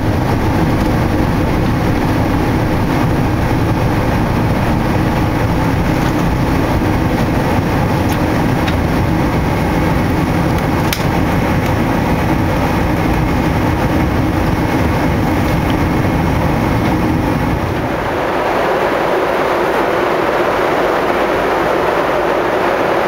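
Boeing 747 engines and airflow at takeoff power, heard inside the cabin: a loud, steady, deep rumble and rush through the takeoff roll and climb-out. About 18 seconds in, it gives way to a higher, steady hiss of cabin noise in flight.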